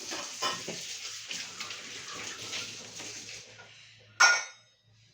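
Water running and splashing, with a few knocks of things being handled in it, until it fades out about three and a half seconds in. A short, loud clatter follows near the end.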